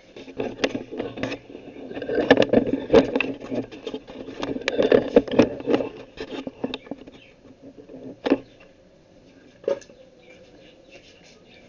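Handling noise: irregular taps, knocks and rustling, busiest in the first half and thinning to a few single knocks later, as the camera phone is moved and set up over the table.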